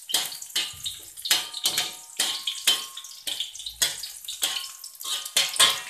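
Garlic sizzling in hot oil in a metal wok while a metal spatula scrapes and stirs it, in quick repeated strokes about two or three times a second.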